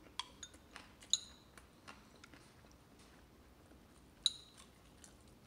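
Quiet eating sounds from a baby chewing a fried chicken wing: faint scattered mouth clicks, with two short, light clinks, about a second in and about four seconds in.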